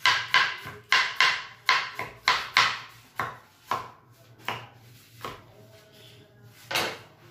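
Kitchen knife chopping cucumber on a plastic cutting board: quick, even chops about three a second, thinning to a few slower chops after about four seconds.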